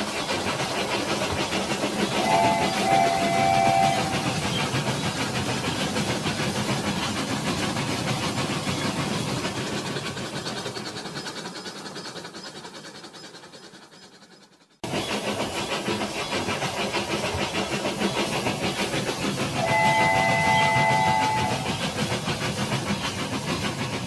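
Battery-powered toy train running on plastic track, its motor and wheels making a fast, steady rattling whir that fades as it moves away and then stops abruptly; the rattle starts again a moment later. Twice the toy's sound chip plays a short chord of whistle tones, about two seconds in and again about twenty seconds in.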